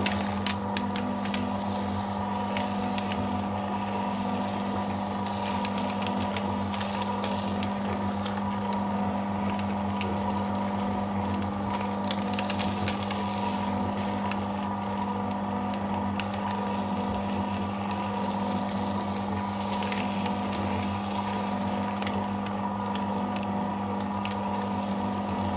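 Electric paper shredder running steadily with a constant motor hum, its cutters crackling and ticking through thermal-print ECG paper as it is fed in.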